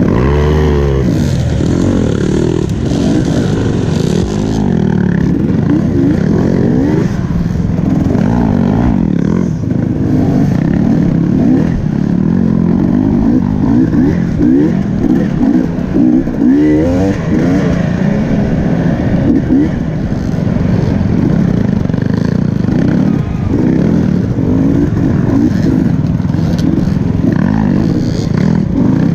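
Off-road dirt bike engine ridden on a hare scramble course, its pitch repeatedly rising and falling with throttle changes and gear shifts.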